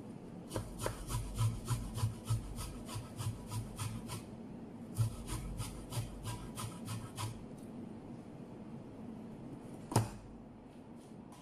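A garlic clove rasped across a stainless-steel box grater, about three to four scraping strokes a second in two runs with a short pause between, grating fresh garlic in place of garlic paste. A single sharp knock near the end is the loudest sound.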